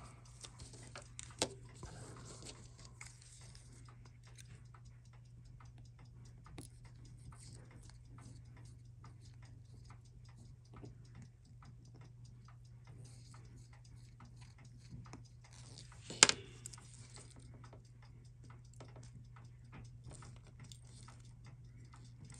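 Faint steady clock-like ticking over a low hum, with light clicks of small metal parts. One sharper click comes about 16 seconds in.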